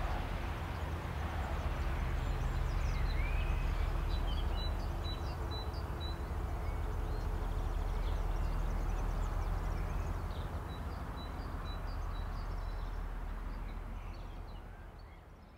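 Birds chirping and singing over a steady low rumble, with a thin high note repeated in short runs. All of it fades out near the end.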